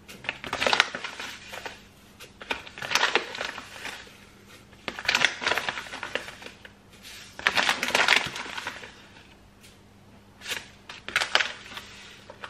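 A spoon scooping granulated erythritol out of a plastic pouch and tipping it into a mixing bowl. Grainy crunching and pouch crinkling come in repeated bursts about every two to three seconds.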